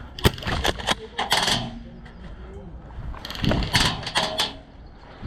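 A series of sharp mechanical clicks and knocks in two clusters, one starting just after the beginning and one past the three-second mark, with voices in the background.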